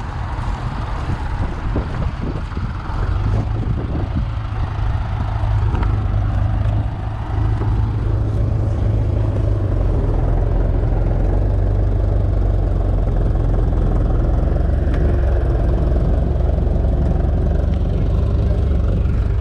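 Ferguson tractor engine running with a steady low hum, becoming louder and steadier about eight seconds in.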